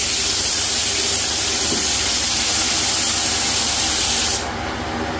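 Compressed-air spray gun with a cup underneath spraying contact cement: a loud, steady hiss of air and atomised glue that cuts off suddenly about four seconds in as the trigger is released, leaving a steady low hum.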